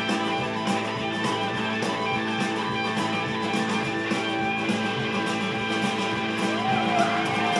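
A rock band playing: strummed electric guitar chords over a steady drum beat.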